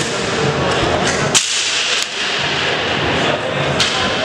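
Floor hockey play: two sharp cracks of sticks and ball striking, about a second and a half in and near the end, over a steady background of voices.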